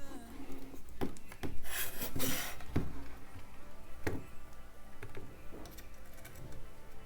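Handling sounds on a workbench: a few sharp clicks and a brief scratchy rub about two seconds in, over a faint steady low hum.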